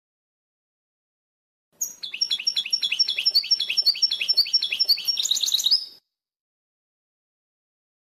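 European goldfinch song: one phrase of about four seconds, starting about two seconds in, made of a fast run of short, sharp sliding notes that thickens into a dense trill before it cuts off, with dead silence either side.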